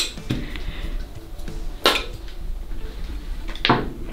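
Small craft decorations clinking against a glass baking dish as they are dropped and handled in it: three sharp clinks, roughly two seconds apart.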